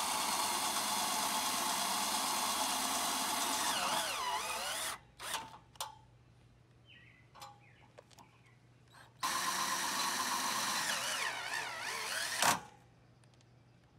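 Cordless drill driving self-drilling screws through a metal bracket into a trailer's frame. It runs for about five seconds, its pitch wavering near the end as the screw seats. After a pause with a few clicks it runs again for about three seconds and stops suddenly.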